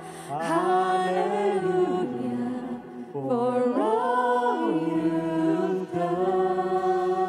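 Live worship singing: a lead vocalist holds long notes that slide up and down, over a steady sustained keyboard chord.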